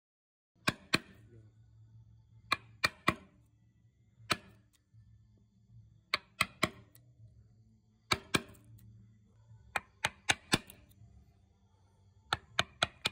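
A steel chisel being struck to cut into the end grain of a wooden stump: sharp taps in quick groups of two to four, about every one and a half to two seconds.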